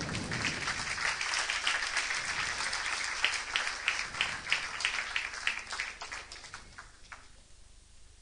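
Audience applauding steadily. The applause thins to a few last scattered claps and stops about seven seconds in.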